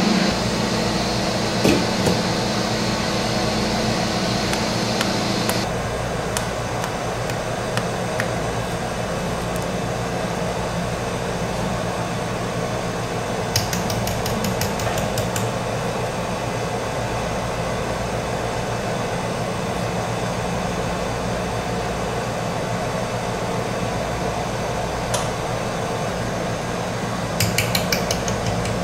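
Steady machine hum in a chocolate kitchen, with a higher hiss that stops about six seconds in. Twice there is a quick run of light metal clicks, a wire dipping fork tapped against the rim of a metal pot of melted chocolate, once in the middle and once near the end.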